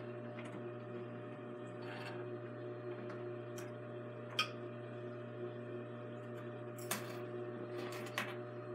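Steady low hum from an idle industrial sewing machine, with a few scattered light clicks and rustles as denim jeans are handled and pulled from under the presser foot.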